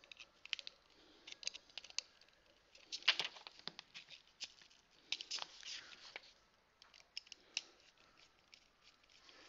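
Irregular small plastic clicks and scratchy scrapes from handling a toy robot at its battery compartment, where its LR44 button cells sit.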